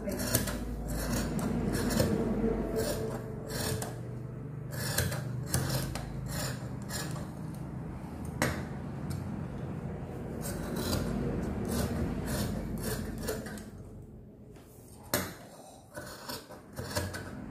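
Large tailor's shears cutting through thick woven fabric: a steady run of blade snips and rubbing, about two or three strokes a second, with a brief pause near the end.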